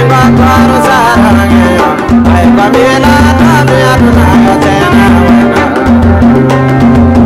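Music with a steady drum beat, a repeating bass line and a wavering melody over it.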